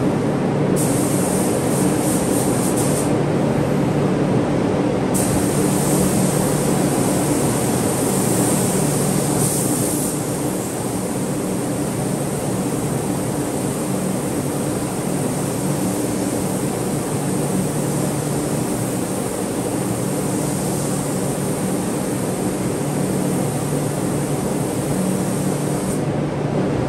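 Steady hum of a spray-booth exhaust fan. In the first ten seconds, a high air hiss from a spray gun laying down clearcoat starts and stops twice.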